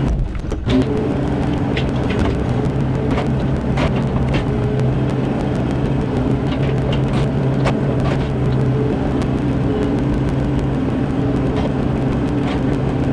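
Mini excavator engine running steadily, with scattered sharp knocks and clanks of the bucket working the boulders.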